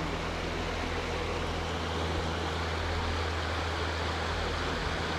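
Steady rush of flowing river water, with a low steady hum underneath.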